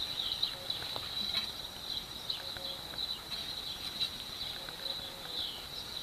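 Steady high-pitched chirring of insects, with short falling chirps repeating on top of it and a few faint clicks.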